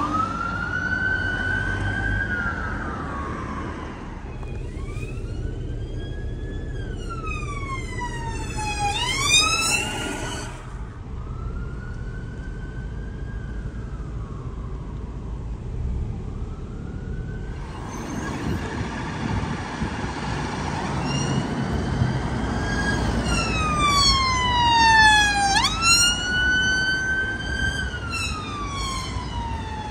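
Emergency vehicle sirens: a wail sweeping slowly up and down, switching twice to a fast yelp, over road traffic noise.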